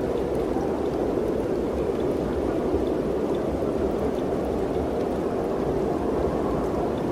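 Mountain wind blowing steadily, a continuous rushing with a low rumble underneath and faint scattered ticks.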